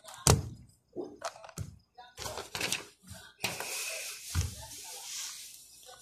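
A GAN 354 M 3×3 speed cube being turned fast, with quick plastic clicks, and two sharp thuds of hands and cube on the table mat, about a third of a second in and again about four and a half seconds in, as the solve ends. A steady hiss comes in past the halfway point.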